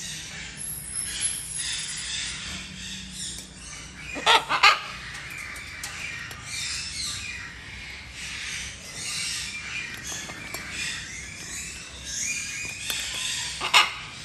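Many parrots chattering and calling at once in an aviary, with loud harsh macaw squawks cutting through: a quick double squawk about four seconds in and another near the end.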